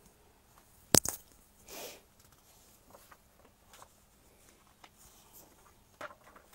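Mostly quiet, broken by one sharp, loud click about a second in, followed shortly by a brief hissy rustle, and a fainter click near the end.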